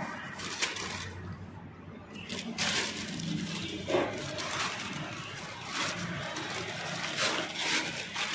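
Plastic wrapping crinkling and a cardboard box rustling as a new clutch disc and pressure plate are handled, with irregular sharp crackles throughout and a louder crackle about four seconds in.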